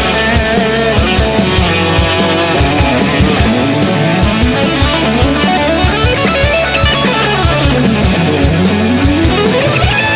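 Live rock band playing an instrumental passage with no vocals: guitar prominent over a steady drum beat, with runs of notes climbing and falling in pitch.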